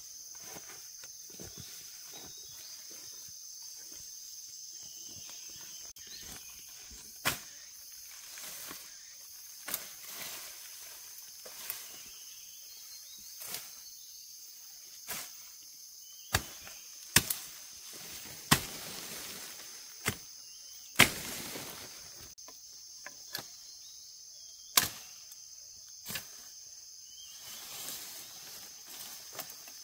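A steady, high-pitched drone of insects, with about fourteen sharp, irregular knocks starting about a quarter of the way in and coming roughly every second or two, the loudest in the middle.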